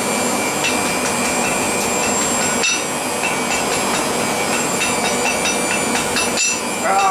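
Hand hammer striking a red-hot billet of bicycle spokes and chain on a steel anvil in a fast, steady run of blows with a metallic ring: forge welding the fluxed strands together at welding heat.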